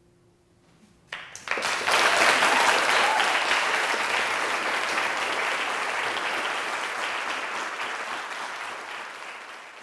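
Audience applause that breaks out about a second in, after a last plucked-string note dies away. It swells to full strength within a second, then slowly tapers off.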